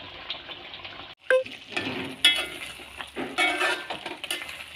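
Goat-head masala sizzling in an open pan as its water cooks off, with a spoon stirring and scraping against the metal pan in several clinking strokes.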